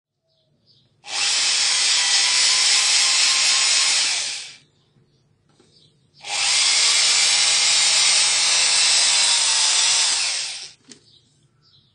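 Cordless drill boring into the plastic end piece of an HP 17A laser toner cartridge, in two steady runs of about three and a half and four and a half seconds with a short pause between.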